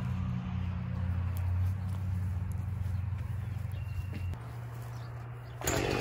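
An engine idling with a low, steady hum. Near the end it gives way abruptly to a much louder, busier sound.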